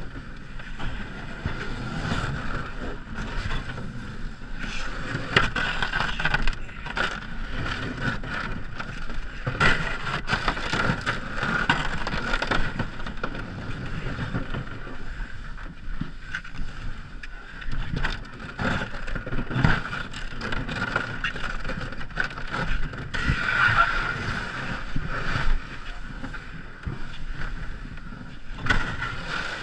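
Ice canoe moving through the icy river: water and slush splashing, with irregular knocks against the hull.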